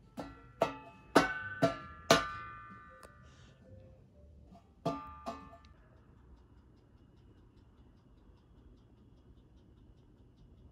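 A short plucked melody: five bright, ringing notes in about two seconds, then two more about five seconds in, each dying away quickly. Faint, even ticking follows.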